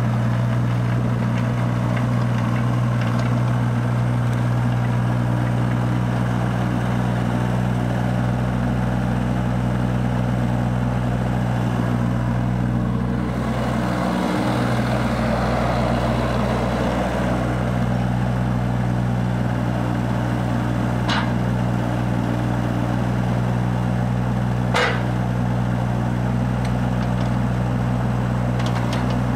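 JCB 8014 CTS mini tracked excavator's diesel engine idling steadily, with no revving. Two sharp clicks sound in the second half.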